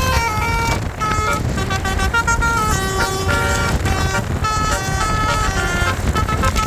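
Basuri telolet bus horn playing a tune, a run of quick stepped notes with brief breaks, over a steady low engine rumble.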